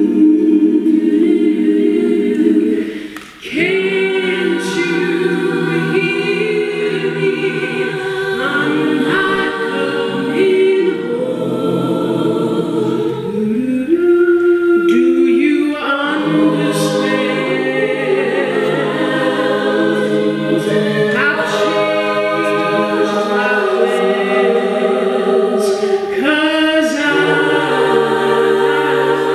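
Soprano-alto a cappella group singing in close harmony, many voices holding stacked chords with no instruments. The sound breaks off briefly about three seconds in, then the full group comes back in.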